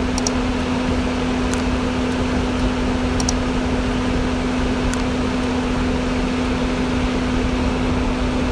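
Diesel engine of farm machinery running at steady revs, a constant hum over a low rumble with a few faint clicks.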